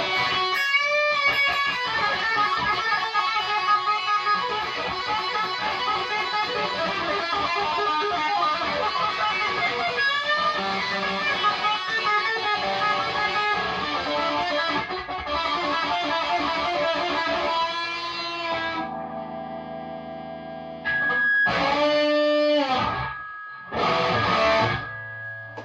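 Chibson Les Paul Custom electric guitar played through a Marshall DSL40 combo amp with overdrive: a busy riff for most of the time, then held notes and two chord hits. A steady high feedback tone rings through the last few seconds, feedback the player calls bad.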